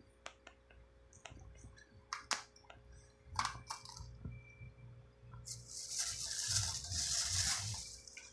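Water-filled plastic fish bags being handled over an aquarium, crinkling with scattered light clicks and taps. A longer, louder stretch of plastic rustling comes in the last few seconds.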